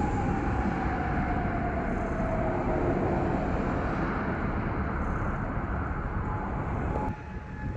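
A steady low rumble with a civil-defence air-raid siren faintly audible, its pitch sliding slowly down over the first three seconds. About seven seconds in, the rumble drops away and the siren's steady wailing tone comes through clearly.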